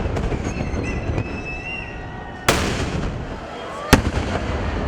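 Fireworks going off: a dense, continuous rumbling crackle of firecrackers, with two sharp, louder bangs about halfway through and near the end, and a few high whistles in the first two seconds.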